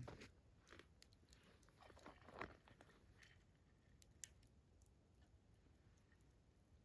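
Near silence with a few faint, sharp clicks and crackles.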